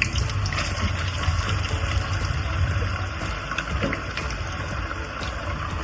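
Chips deep-frying in a pot of hot oil, a steady sizzle with scattered crackles over a low rumble.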